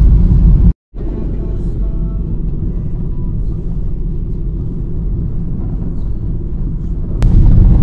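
Steady low rumble of a car driving along a road, heard from inside the moving car. It cuts out briefly a second in, carries on quieter, and comes back louder near the end.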